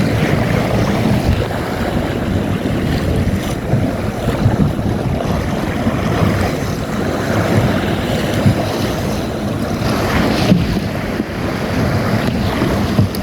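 Strong wind buffeting the microphone over water rushing and splashing along the hull of a Magnum 422, a small open sailboat, sailing fast.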